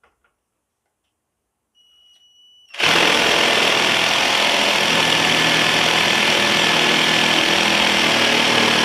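21V cordless jigsaw with orbital action switched on, sawing through a 2x2 hardwood piece. A faint whine comes in about two seconds in, then the loud, steady sawing starts about three seconds in and keeps going.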